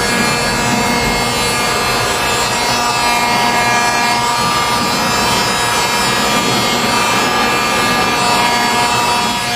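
A TOTAL 2000-watt electric heat gun running steadily, its fan motor whirring under a rush of blown hot air.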